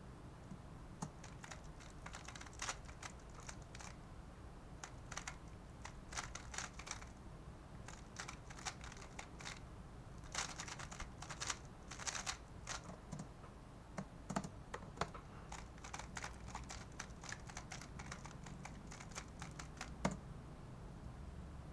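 QiYi Valk 3 Elite M magnetic 3x3 speedcube turned fast during a timed solve: quick runs of plastic clicking and clacking with short pauses between. A single sharper click comes near the end.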